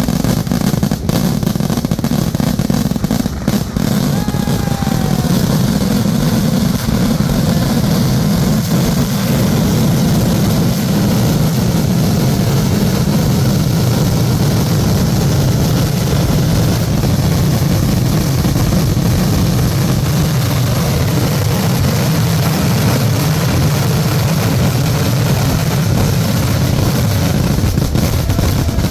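Dense fireworks barrage, with firecrackers going off so fast that the blasts merge into a continuous loud, low rumble. Separate cracks stand out in the first few seconds and again near the end.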